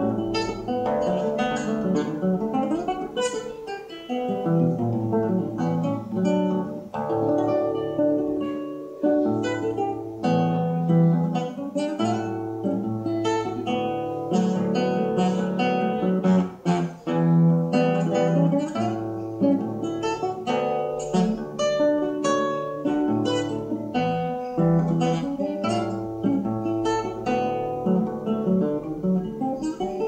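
Solo nylon-string classical guitar playing a choro, fingerpicked, with a steady bass line under a running melody.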